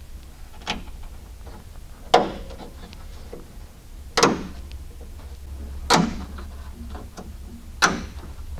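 Sharp snaps, five in all and about two seconds apart, the first one weaker, as a belt line weatherstrip on a 1969 Mercury Cougar door is pressed by hand onto its metal clips.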